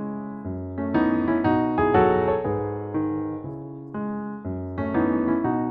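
Background solo piano music, a light, upbeat piece with notes and chords struck every half second or so and fading between strikes.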